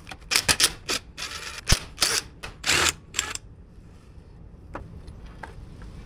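Clicks, knocks and short rattles of a lawn mower carburetor being taken apart by hand: small parts, screws and a screwdriver knocking on the workbench. They come in a quick cluster over the first three seconds or so, with one sharp knock in the middle, then only a few faint ticks.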